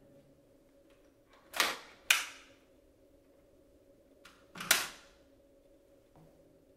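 Plastic parts of a Dyson V7 cordless vacuum clicking into place: two sharp snaps about half a second apart, then a third about three seconds later, as the cyclone and the clear bin's base latch shut.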